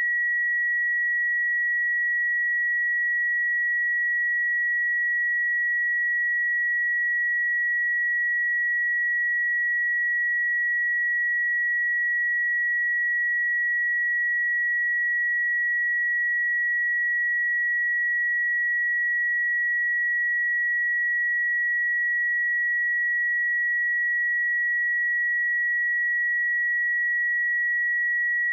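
A pure 1921 Hz sine-wave test tone, one steady high-pitched pitch held unchanging at constant loudness.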